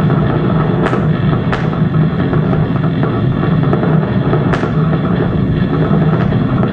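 Loud, dense experimental noise music: a thick, steady low drone with no breaks, cut by sharp clicks about a second in, again half a second later and about four and a half seconds in.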